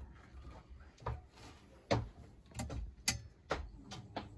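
Sharp clicks and knocks of a model railway diesel locomotive being handled and set on the track: about six, spaced irregularly, the loudest about two and three seconds in.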